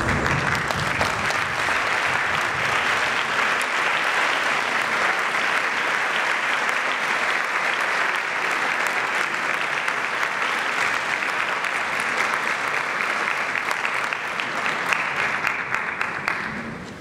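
Concert audience applauding steadily, a dense patter of many hands clapping that dies away just before the end.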